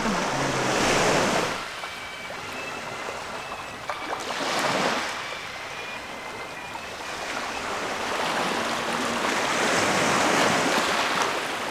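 Small sea waves washing onto a pebble beach, the hiss swelling and falling back about three times.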